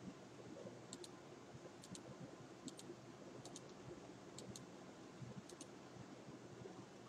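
About six faint computer mouse clicks, roughly a second apart, each heard as a quick double tick, over low steady background hiss.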